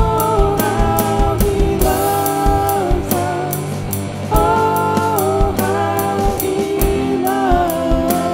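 Worship band with drum kit accompanying singing voices, long held sung notes over a steady drum beat.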